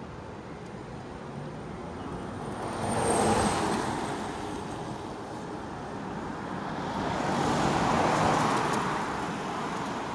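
Cars passing one after another on a wet road, the tyre noise swelling and fading twice, loudest about three seconds in and again about eight seconds in.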